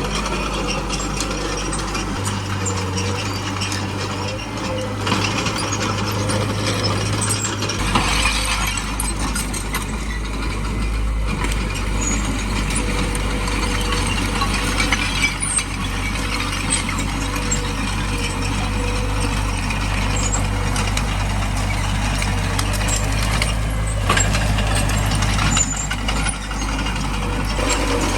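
Small crawler bulldozer working: its diesel engine runs steadily under load while the steel tracks clatter and ratchet, with a few sharper knocks along the way.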